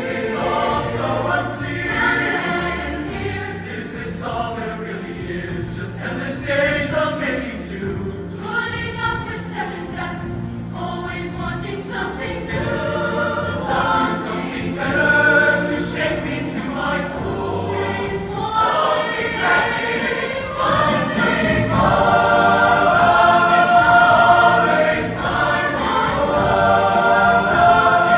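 A mixed show choir singing in full harmony over live band accompaniment with a steady bass line. The singing grows fuller and louder about two-thirds of the way through.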